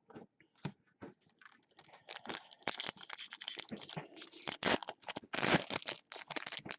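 Plastic trading-card pack wrapper crinkling and tearing as it is ripped open by hand. A few scattered crackles at first, then a dense run of crinkling from about two seconds in.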